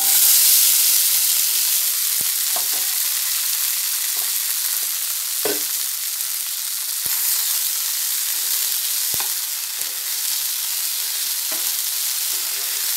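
Boiled sweet corn kernels sizzling in hot ghee in a nonstick frying pan, loudest at the very start as they are tipped in, then a steady sizzle. A spatula stirs them, with a few short clicks against the pan.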